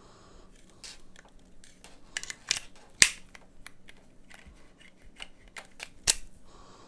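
Hands handling a wireless microphone receiver and its cable: scattered small clicks and taps of plastic and connectors, the sharpest about three seconds in and again about six seconds in.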